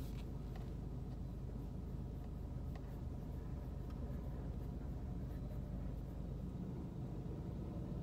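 Steady low rumble inside a car stopped and creeping in traffic, with a few faint ticks.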